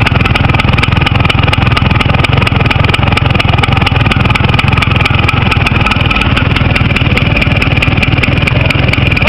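A vehicle engine running steadily through its exhaust at a constant speed, with no revving. The engine has never been rebuilt and still has its original pistons.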